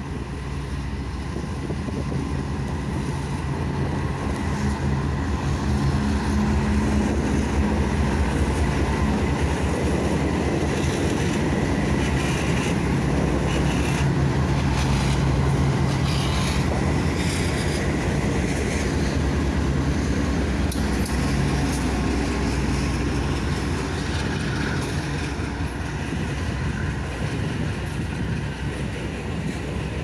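A freight train passing close by, led by GE AC4400CW diesel-electric locomotives. The locomotives' engines hum steadily and grow louder through the middle as the lead units go by, under a continuous rumble and clatter of the freight cars' wheels on the rails.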